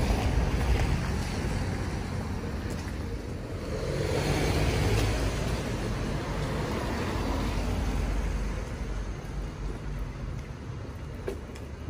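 Street traffic: a vehicle passing, its noise swelling about four seconds in and again a few seconds later before fading, over a low wind rumble on the microphone.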